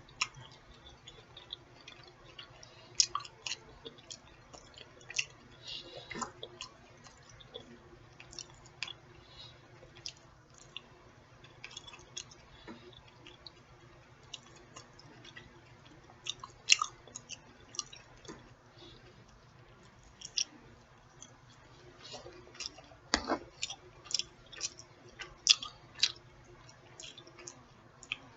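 Close-miked chewing and mouth sounds of a person eating: irregular wet smacks and clicks, with a few louder ones scattered through.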